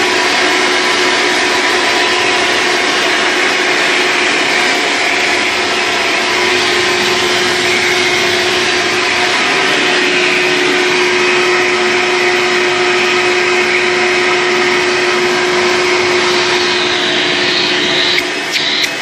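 1998 Hoover Runabout U4258 upright vacuum cleaner running steadily on hose suction, with a steady whistling tone that comes up about halfway through. Near the end the sound starts to break up and flutter.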